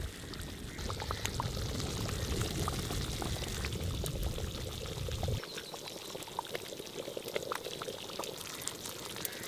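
Thin curry gravy bubbling and simmering in an iron kadai, with many small pops. A low rumble underneath cuts off abruptly about five seconds in.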